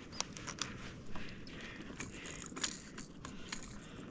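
Scattered small clicks and light rattles of metal fishing tackle: a lure's treble hooks and gear knocking about as a hooked kingfish is handled and unhooked on a kayak.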